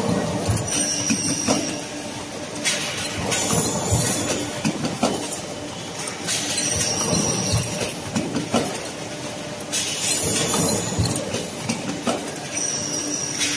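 Aluminium solar-frame production line machinery running: a steady metallic clatter with knocks, broken about every three seconds by a burst of high hiss with a faint whistle, the exhaust of the line's pneumatic cylinders cycling.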